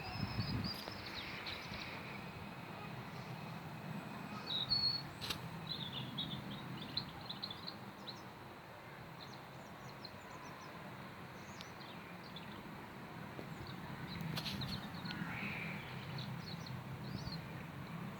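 A steady, distant low rumble from the sky, of unidentified source, heard a few times a month. Small birds chirp over it, most around a third of the way in and again near the end.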